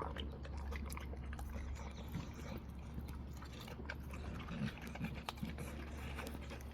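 Dog chewing and eating its food: a run of small, irregular wet clicks and crunches.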